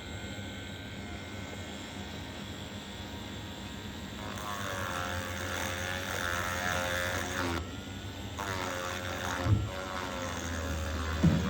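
Hot air rework station blowing onto a phone circuit board. The air noise starts about four seconds in, breaks off briefly near the middle and resumes. There are a couple of light knocks near the end.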